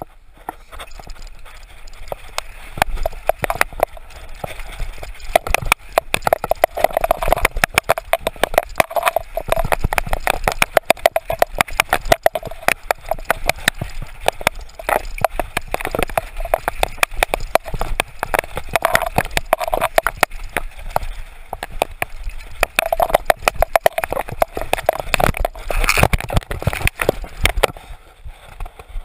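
Mountain bike clattering at speed down a rough, dusty dirt trail: a dense, steady stream of knocks and rattles from the bike over bumps and roots, with tyre noise on loose dirt, getting louder over the first couple of seconds.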